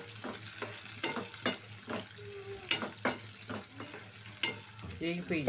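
A spatula scraping and knocking against a pan as sliced onions, green chillies and curry leaves are stirred in hot oil, with a steady sizzle of frying underneath. The strokes come irregularly, about two a second.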